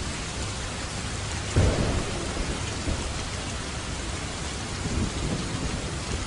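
Steady rain falling, an even hiss, with a sudden low rumble of thunder about one and a half seconds in and a softer rumble near the end.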